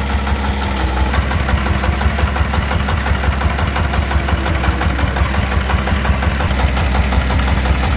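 Single-cylinder diesel engine of a công nông three-wheeler idling with a steady, regular knocking chug.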